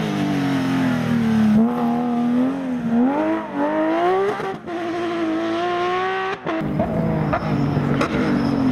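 Rally car engine at high revs under hard acceleration. Its pitch climbs with each gear, broken by quick shifts about halfway through and again past two-thirds of the way.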